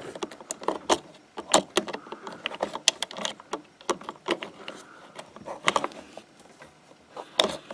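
Hands fitting an insulated crimp connector on a negative wire lead onto a terminal: an irregular run of small clicks, taps and rattles of plastic connectors and wires being handled, with a couple of sharper clicks near the end.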